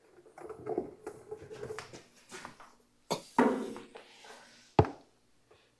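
Handling noises from work on the engine: faint rustling and small clicks, a louder clatter about three seconds in, and a single sharp knock near the end.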